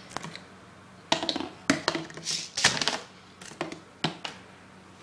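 Handling noise: a paper towel rustling while objects are knocked and set down on a table with a series of short clicks and taps.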